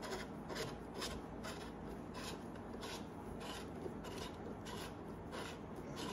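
Hands twisting a metal broom handle to screw its sections together: faint rubbing and scraping strokes, about two a second.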